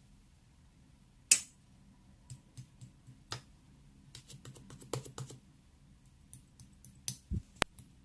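Irregular light clicks and taps over a quiet background, with a sharper click about a second in and a low thump near the end.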